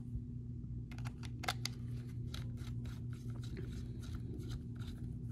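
Rapid small clicks and scrapes of a stubby antenna being screwed onto a handheld UHF two-way radio's antenna connector, plastic and metal rubbing as it is turned, over a steady low hum.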